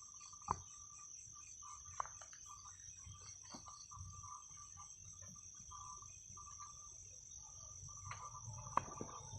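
Night insect chorus: crickets trilling steadily at a high pitch, with other chirping calls coming and going. A few sharp clicks stand out, the loudest about half a second in and near the end.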